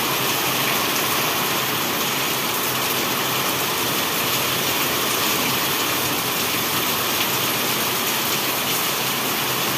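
Heavy rain pouring onto a wet concrete rooftop terrace: a steady, dense hiss of drops splashing on the puddled floor.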